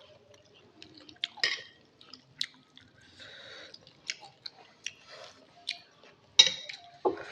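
Close-miked eating of instant noodle soup: wet chewing with scattered mouth clicks and smacks, a short slurp about three seconds in, and a sharp clink about six and a half seconds in.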